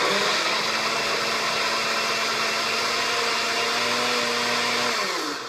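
Countertop blender running at speed through a thick smoothie, a steady motor whine over the churning mix. It switches off near the end, its pitch falling as the motor spins down.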